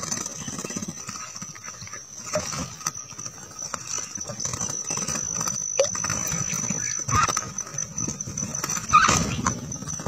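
Red-whiskered bulbuls bathing in a shallow rock pool: repeated splashing and wing-fluttering in the water, with short bird calls about seven and nine seconds in, over a steady high-pitched whine.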